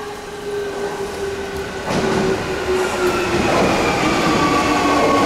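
Keio 1000-series electric train with a Toyo IGBT-VVVF inverter coming in and slowing. Its motor and inverter whine is a few steady tones sliding gradually lower in pitch as speed drops. Wheel and rail noise swells and gets louder from about two seconds in as the train draws near.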